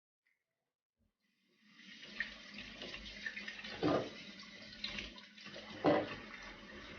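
Water running from a kitchen tap and splashing into a sink, starting about a second and a half in, with two louder bumps about four and six seconds in.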